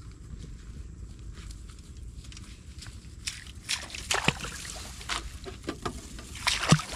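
Muddy paddy water sloshing and splashing around wading bare feet, then sharp clicks and knocks as a plastic fish box is handled, starting about three seconds in and loudest near the end, over a steady low rumble.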